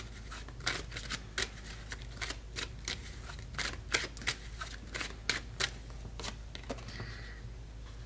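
A tarot deck being shuffled by hand: quick, irregular card snaps and flicks, several a second.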